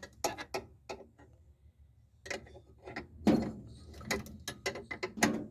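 Hand tools and metal parts clicking and knocking irregularly during fitting work on a top-loading washing machine's gearbox and motor assembly.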